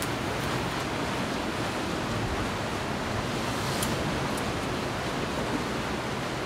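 Steady wash of ocean surf against the cliff below the cave, with a couple of faint clicks near the start and about four seconds in.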